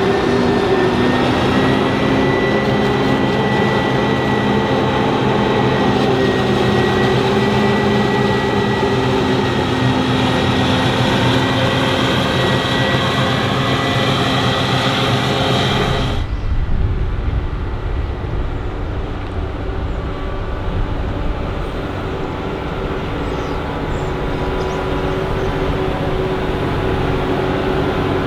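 Heavy farm machinery engines running steadily under load. About sixteen seconds in the sound changes abruptly to a different, lower-pitched engine sound, as from another machine.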